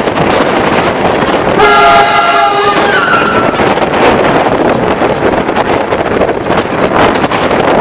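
DEMU commuter train running, with steady wind and track noise rushing past an open window, and a train horn sounding one chord for about a second, about a second and a half in.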